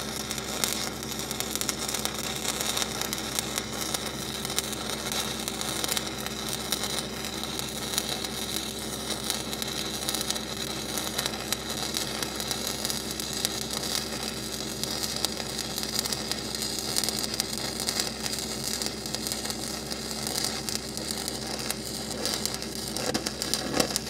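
Stick welding arc from a large 8010 cellulose rod: a steady crackling, sizzling hiss with small pops. It cuts off suddenly at the very end as the arc is broken.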